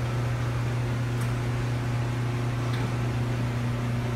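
Steady low hum of a powered-up Mazak Slant Turn 450 CNC lathe standing idle, one low droning tone with a fainter higher tone above it, unchanging throughout.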